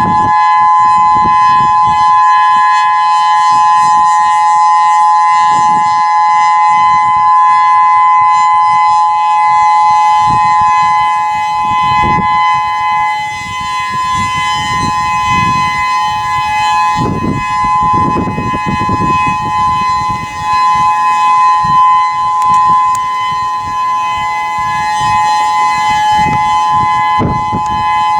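Whelen 3016 electronic rotating outdoor warning siren sounding its steady alert tone, two held pitches together with no rise or fall in pitch. The loudness swells and dips as the rotating head turns.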